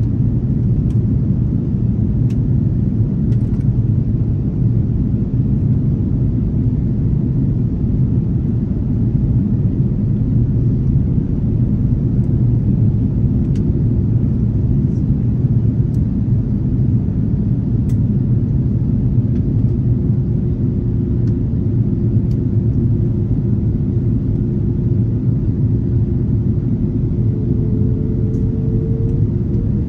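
Airbus A330-300 airliner cabin noise in flight: a steady, loud low rumble of engines and airflow. A faint steady hum joins in about two-thirds of the way through.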